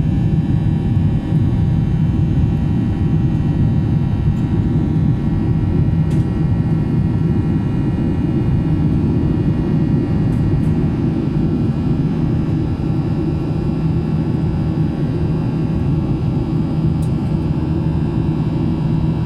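Jet airliner cabin noise during the climb after takeoff. The engines and airflow make a steady low rumble, with a faint steady whine above it.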